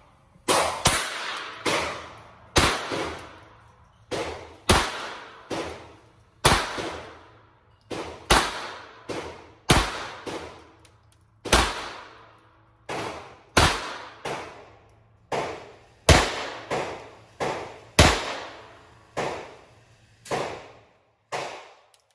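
Handgun shots fired one after another in a long string, about one to two a second, each sharp crack ringing off in the echo of an indoor range.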